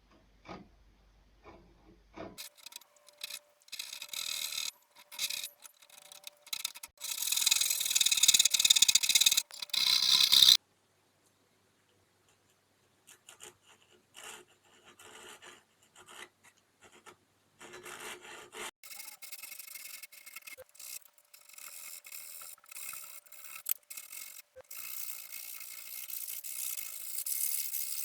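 Repeated scraping strokes of a hand tool working the wood of a setar under construction. The strokes stop abruptly about ten seconds in and pick up again a few seconds later.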